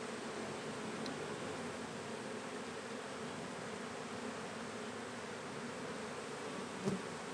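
A mass of honeybees buzzing in a steady drone, with one short knock near the end.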